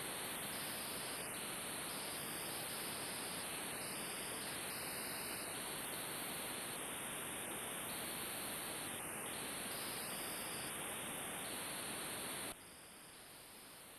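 Steady static hiss with no other sound in it. About twelve and a half seconds in it drops suddenly to a fainter hiss.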